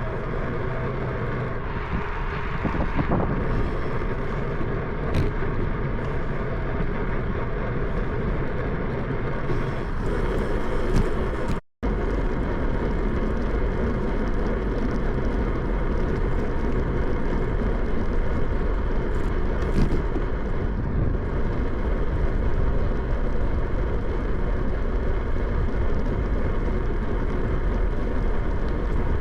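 Steady wind rumble and road noise on the microphone of a bicycle ride in motion. The sound drops out for an instant about twelve seconds in, then carries on the same.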